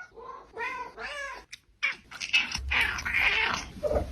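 Several domestic cats meowing one after another, each with a different voice: about half a dozen separate meows at different pitches, with a louder, rougher call about three seconds in.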